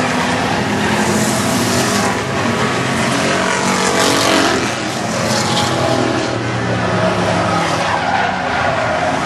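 A pack of V8 stock cars racing together on a short oval, engines running hard as they go by, with brief tyre skidding.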